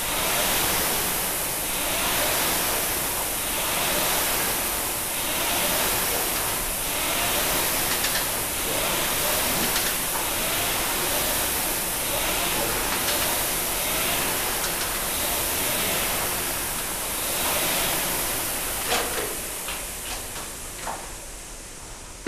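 Air-resistance fans of two rowing machines whirring, the rush of air swelling with each hard stroke about every second and a half. Near the end the whirr dies away and a few knocks sound as the rowing stops.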